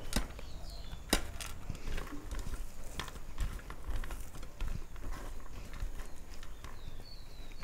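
Rice being mixed by hand on a steel plate: soft squishing and scraping, with two sharp clicks against the plate in the first second or so.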